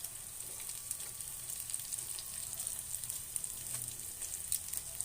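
Eggplant deep-frying in hot cooking oil: a steady sizzle with scattered crackles and pops.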